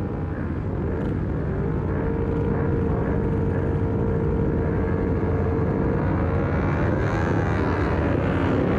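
Small race motorcycles' engines running on a starting grid: a steady held drone, then engine revs rising and falling near the end.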